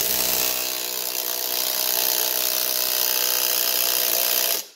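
18-volt cordless impact wrench run at full throttle, hammering steadily on the flywheel nut of a Yamaha Raptor 700 crankshaft; the impacts seat the flywheel down on the crankshaft taper. It starts abruptly and cuts off near the end.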